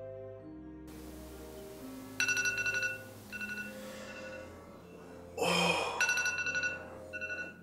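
Soft music ends about a second in; then a phone rings in short trilling bursts, four times. A loud rustle of bedding comes between the third and fourth bursts.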